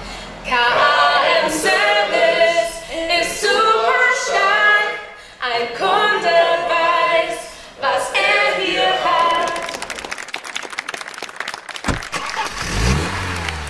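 A group of voices singing together a cappella in a few short phrases, which end about nine and a half seconds in. Near the end a car engine rises in pitch as the car pulls away.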